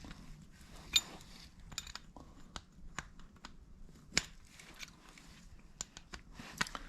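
Irregular light metallic clicks and taps of a wrench working a fastener on a motorcycle carburetor, the sharpest about a second in and about four seconds in.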